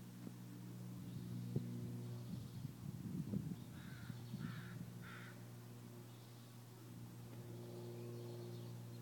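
A bird calls three times in quick succession, about two-thirds of a second apart, over a steady low hum. Just before the calls come a few soft knocks and rustles.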